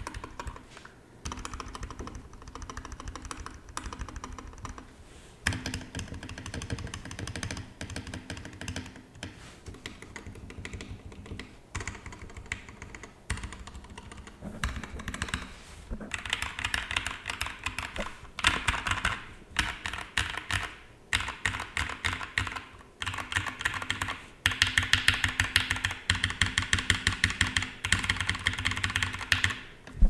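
Typing on a GMMK TKL mechanical keyboard fitted with lubed and filmed Gateron Yellow linear switches and PBT keycaps. It is a steady run of keystrokes broken by short pauses, and it gets faster and louder from about halfway through.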